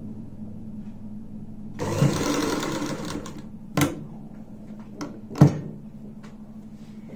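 A domestic sewing machine runs a short burst of stitching for about a second and a half, starting about two seconds in. It is followed by a few sharp clacks, the loudest about five seconds in, all over a steady low hum.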